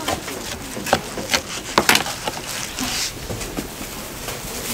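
Several sharp knocks and taps, about five of them bunched between one and two seconds in, over a steady background hiss.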